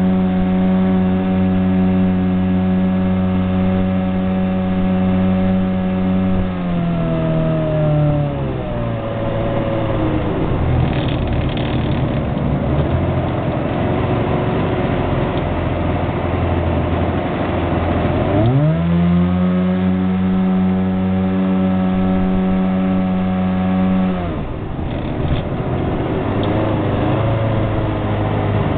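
Homemade jet boat's engine running at high, steady revs, then easing off about six seconds in to a lower, rougher note. About two-thirds of the way through it revs sharply back up, and it drops off again a few seconds before the end.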